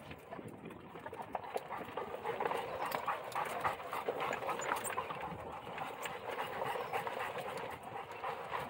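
A Central Asian Shepherd dog walking on a gravel road, its paws crunching and clicking on the stones in a steady rhythm.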